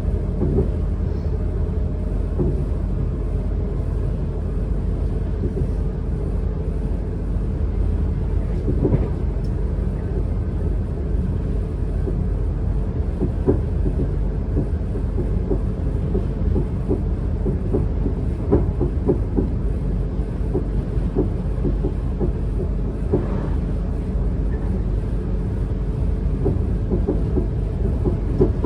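Class 444 Siemens Desiro electric train running along the track, heard from inside the carriage: a steady low rumble of wheels on rail with frequent short, irregular knocks and rattles.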